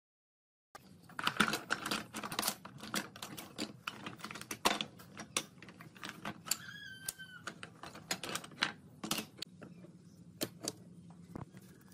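Thin pine strips clacking and knocking against each other and the wooden workbench as they are handled and laid out: quick irregular wooden clicks, busiest in the first half, then fewer. A brief high chirp sounds about halfway through.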